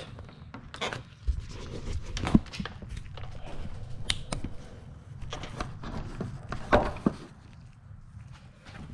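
Plastic front bumper cover of a Kia Optima being pushed and lifted free of its retaining clips: scattered knocks, clicks and creaks of plastic, the loudest knock about two-thirds of the way through.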